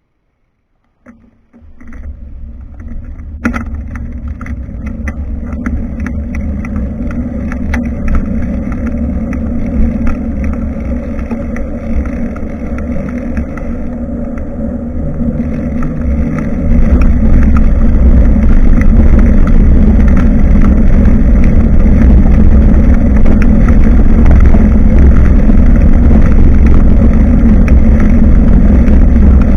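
Wind and riding noise on a bicycle-mounted camera's microphone: a loud, continuous low rumble that starts suddenly after a second of silence and grows louder about halfway through.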